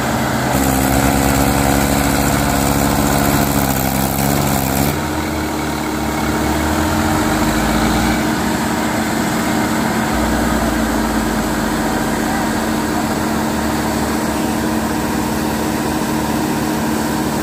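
Diesel tractor engines running: a higher engine note for the first few seconds that drops abruptly to a steady lower idle about five seconds in.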